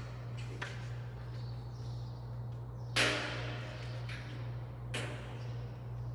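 A tape measure working against light-gauge steel stud framing: three sharp clicks and taps, the loudest with a short metallic ring about three seconds in, over a steady low hum.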